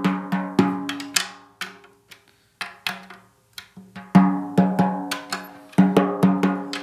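Snare drum head tapped around the lugs, one spot after another, to check that the top head's tension is even; the bottom head is cranked as tight as it will go. Each tap gives a sharp crack with a short ring at much the same pitch, about three taps a second, with a pause about two seconds in before the tapping picks up again.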